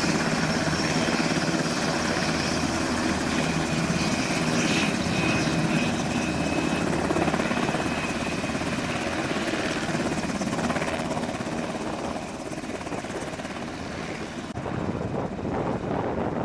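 Sikorsky HH-60 Pave Hawk helicopter running on the ground, its rotor blades chopping steadily over its twin turboshaft engines. Near the end the sound turns more distant.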